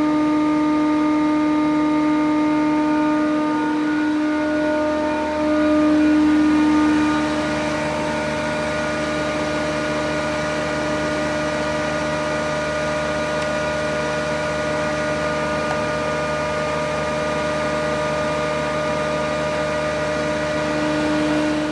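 FORMAT 4 Dual 51 combined surface and thickness planer running steadily with a constant hum and whine, briefly a little louder about five seconds in.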